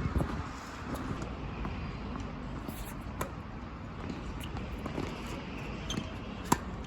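Strong wind buffeting the microphone, a steady low rumble, with one sharp knock about six and a half seconds in.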